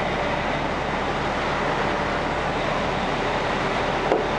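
Cabo 45 Express sportfishing boat under way: the steady drone of its inboard diesel engines mixed with wind and rushing water. A single sharp click near the end.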